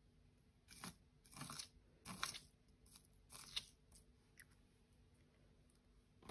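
Clear glitter slime being pressed and spread with the fingertips on a plastic cutting board: about five short crackly sounds over the first few seconds, then a few faint ticks.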